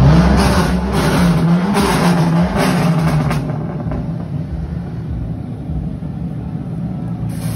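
Car engine revving in about four quick blips over the first three seconds or so, then running more quietly and steadily.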